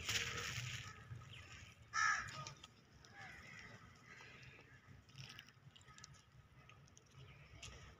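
A single short, harsh animal call about two seconds in, followed a second later by a fainter one.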